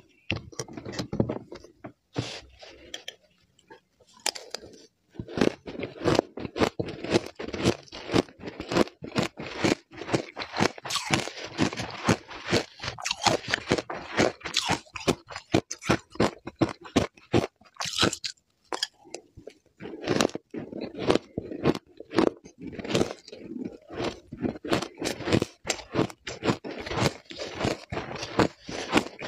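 Shaved ice crunching, chewed close to the microphone, with a metal spoon scraping through the ice in a glass jug. The crunches are sparse for the first few seconds, then come thick and fast, with a short break past the middle.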